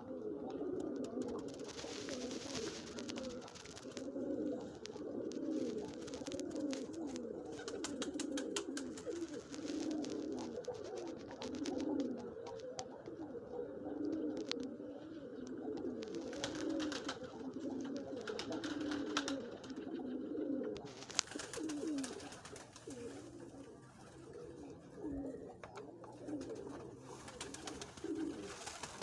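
Several pigeons cooing, their low repeated coos overlapping without a break, with scattered light clicks among them.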